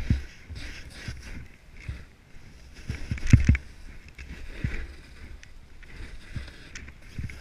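Snow hissing under skis or a snowboard cutting turns through deep powder, swelling and fading with each turn, with frequent low thumps and rumbles on the microphone that are heaviest about three seconds in.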